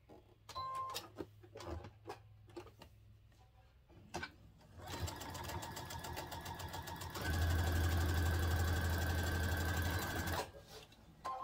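Electric sewing machine stitching a seam. A few clicks and a short beep come first. The motor starts about five seconds in and runs at a slower pace, then speeds up and gets louder about two seconds later, and stops sharply just after ten seconds.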